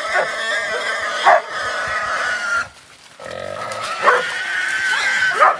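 Wild hog squealing in two long, high squeals with a short break between them, the distress squeal of a boar caught and held by German shorthaired pointers.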